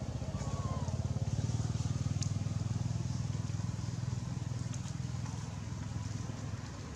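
Low engine hum of a passing motor vehicle, growing louder over the first second or two and then slowly fading.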